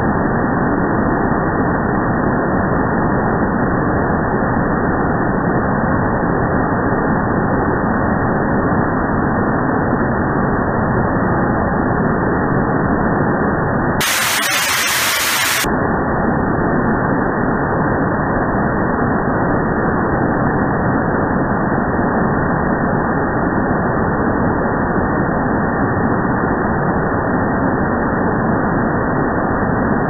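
Water falling down the water-curtain wall: a steady, dull rush with no high end. About halfway through it briefly switches to a brighter, thinner hiss for under two seconds.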